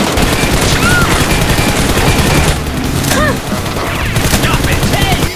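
Rapid gunfire, shots in quick succession throughout, with a few brief high cries over it.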